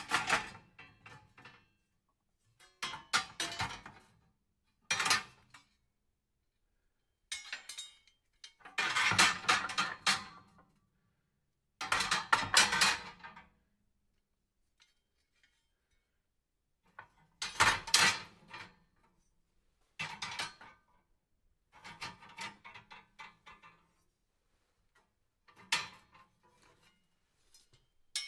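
Metal fireplace tools clinking and rattling against each other in about ten short bursts of one to two seconds, with silences between.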